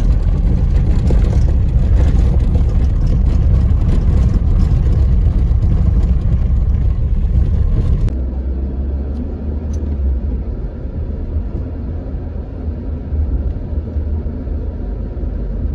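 Car cabin noise while driving: a steady low rumble of tyres and engine on a dirt road. About eight seconds in it changes abruptly to a quieter, duller rumble on paved road.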